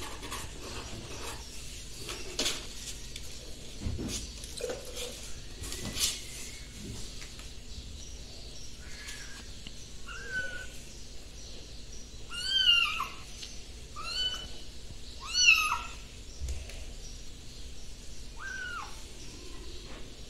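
Young kittens mewing: about six short, high mews, each rising and falling in pitch, starting about nine seconds in and loudest in the middle. Before them, a few soft rustles and light knocks.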